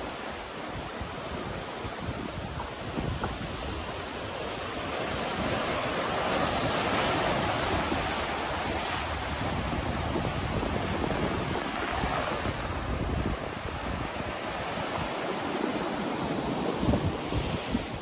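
Sea surf washing over rocks below the shore, a steady rush that swells for a few seconds and eases again, with wind buffeting the microphone.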